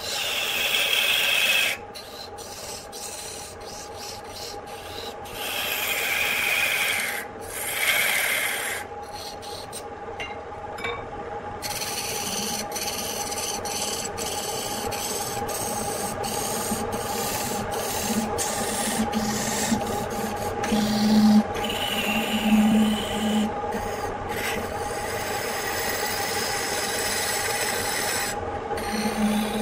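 A hand-held turning tool scraping and cutting a spinning wooden blank on a lathe, in rasping passages that come and go, over the steady hum of the lathe's electric motor. A few short low buzzes come in the second half.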